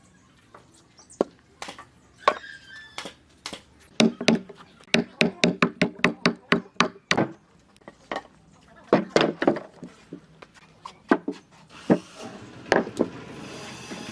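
Repeated sharp knocks of a tool striking wood, with a quick run of about ten hard blows a few seconds in, then more scattered strikes. Near the end there is a brief rasping noise.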